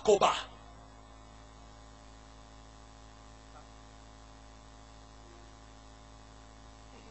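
Steady, low electrical mains hum in a pause of the speech, after a loud shouted voice cuts off about half a second in.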